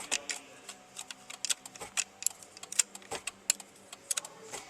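Small sharp metal clicks and ticks, about three or four a second and unevenly spaced, from a 7mm wrench tightening a bolt on a steering-column combination switch.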